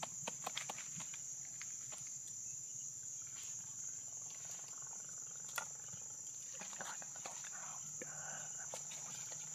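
Steady high-pitched insect chorus, with scattered clicks and light knocks from handling a wire grill rack and knife: several near the start and a sharp one about halfway through.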